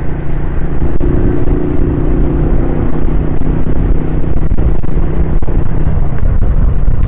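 Single-cylinder four-stroke engine of a 1999 Honda CG 125 Titan running steadily while riding in traffic, heard from the rider's seat, with wind and road noise over the microphone.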